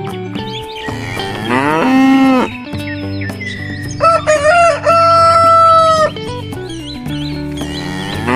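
Sound effects of farm animals over background music: a cow moos once about a second in, then a rooster crows, the loudest sound, from about four seconds in.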